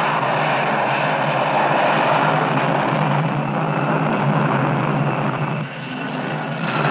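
Jet aircraft engines running on a carrier flight deck: a loud, steady roar, dipping briefly about five and a half seconds in and swelling again, with a falling whine starting at the very end.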